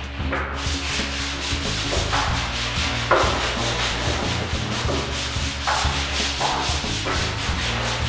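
Hand sandpaper rubbing over a dried wall-putty surface in quick, repeated back-and-forth strokes, a continuous scratchy scraping.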